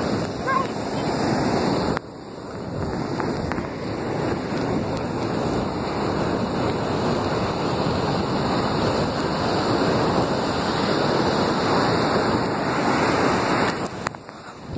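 Surf washing up the beach in a steady rush, with wind buffeting the microphone. It drops off abruptly about two seconds in, builds back, and falls away again near the end.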